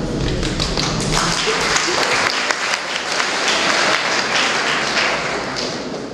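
Audience applause, many hands clapping, dying down near the end.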